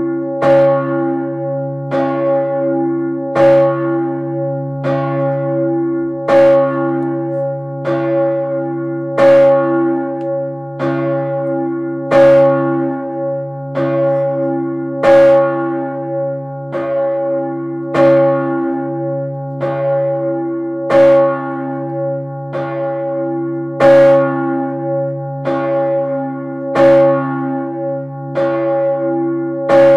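The Urban bell, a swinging church bell of about 3200 kg tuned about C-sharp, cast by Peter Gräf in 1588, ringing with a long steady hum. Its clapper strikes about every second and a half, every other stroke louder.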